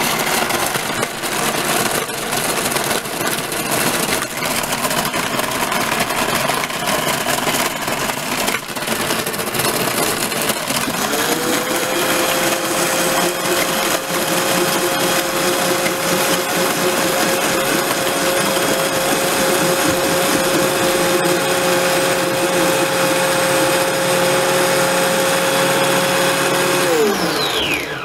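Margaritaville frozen-drink blender running with ice: rough, uneven grinding for about the first ten seconds, then the motor settles into a steady hum. Near the end the hum falls in pitch as the motor winds down and stops.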